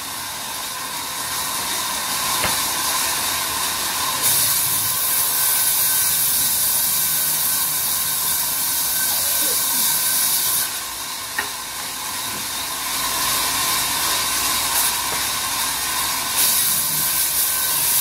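Large sawmill band saw running and cutting a mahogany log into planks: a steady high hiss of the blade through the wood under a constant machine hum. The hiss grows louder about a quarter of the way in, drops back a little past the middle with a single sharp tick, and rises again near the end.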